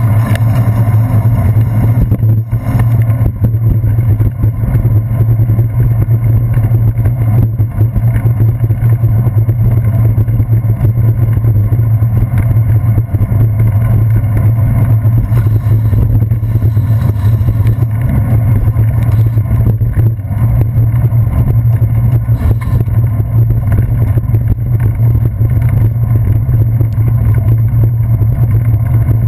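Steady low rumble of wind and road vibration picked up by a handlebar-mounted GoPro Hero 2 while the bicycle rides over wet pavement.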